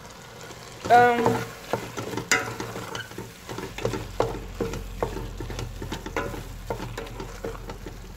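Wooden spoon stirring a simmering pot of greens and pumpkin sauce, knocking and scraping against the metal pot about once or twice a second over the low hiss of the simmering food. The loudest sound is a brief scrape about a second in.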